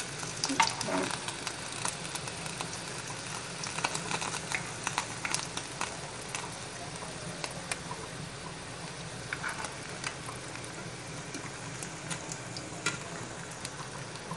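Corn-tortilla flautas frying in hot olive oil in a nonstick pan: a steady sizzle with frequent crackles and pops. Metal tongs click against the pan now and then as the flautas are placed and turned.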